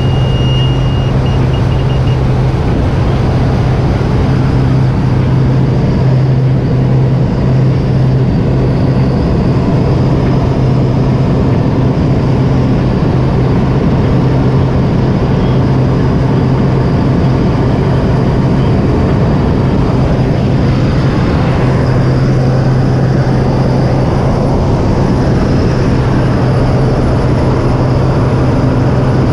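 Light aircraft's propeller engine droning steadily with a strong low hum, heard from inside the cabin during the takeoff run and climb.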